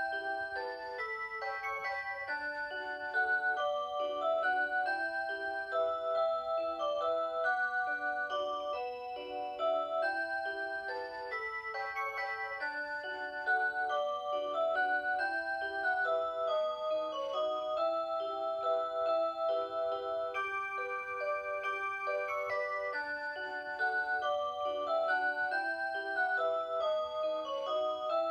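Rhythm Watch Aria Cantabile melody alarm clock playing an electronic tune on its Aurora Sound tone chip, with several parts moving together over a lower line.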